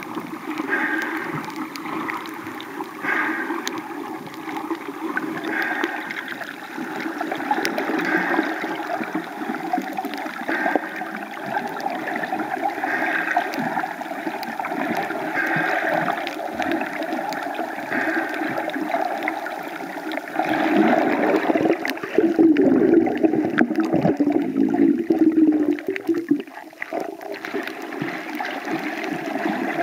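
Water moving around a compact camera held underwater while snorkelling: a continuous gurgling wash that swells about every two and a half seconds, growing louder and lower for several seconds after about twenty seconds in.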